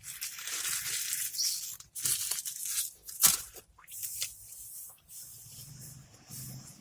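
Rustling and crinkling noises, dense for the first two seconds, with a sharp loud crackle a little over three seconds in, then scattered small clicks.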